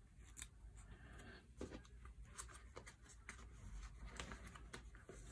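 Faint crinkling and light ticks of clear plastic card sleeves as a sleeved photocard is handled and slid into a binder's pocket page.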